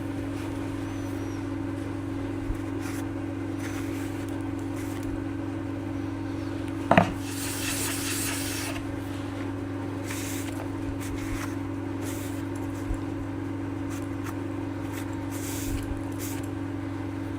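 The sole of a low-angle block plane being rubbed on wet abrasive to flatten it, in spells of scraping strokes, with one sharp knock about seven seconds in. A steady low hum sits under it throughout.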